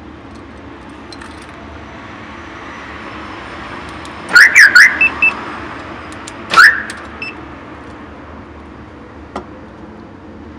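A Chevrolet Ipanema's factory-original alarm siren chirps: a quick cluster of three sweeping chirps about four seconds in, two short beeps just after, then one more sweeping chirp about two seconds later. A small click comes near the end.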